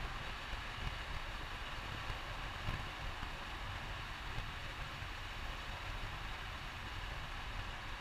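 Steady in-cabin driving noise of a VW 1303 Beetle at cruising speed: a low rumble from the rear air-cooled flat-four engine mixed with road and wind noise. No shifts or sudden events.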